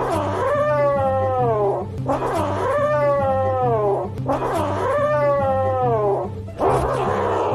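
A kitten yowling three times in long drawn-out calls, each sliding down in pitch, with a short noisy rush near the end. Background music with low repeating notes runs underneath.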